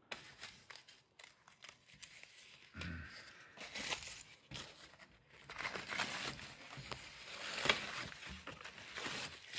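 Shoji paper torn by hand on a wooden shoji lattice frame: crinkling rips on and off, loudest a little under two seconds before the end.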